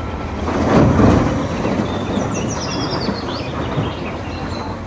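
A loader bucket tipping a load of dark earth into a dump truck's steel bed: a rushing rumble of falling material, loudest about a second in, over the steady running of the machines' engines. Birds chirp a few times in the middle.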